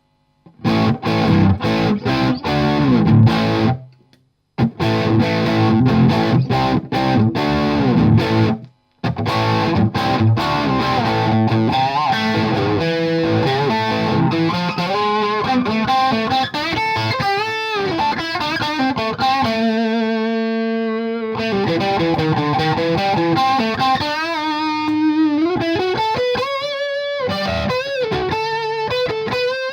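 Bad Cat Love Pup electric guitar played through an Orange Tiny Terror valve amp set for a dirty crunch tone. Chords are cut off sharply twice in the first nine seconds, then the playing runs on into lead lines with bent notes and vibrato.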